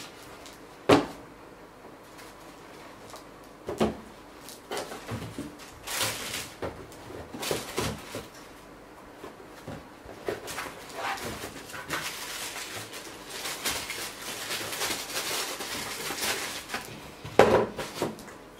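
Sneakers being packed into a cardboard shoebox: a sharp knock about a second in, tissue paper rustling and crinkling through the middle, and a loud thump near the end as the lid is put on.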